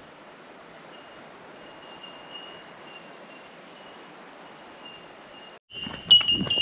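Steady outdoor background hiss with a faint high, thin tone that comes and goes. Near the end it cuts out, and loud footsteps start crunching on dry ground.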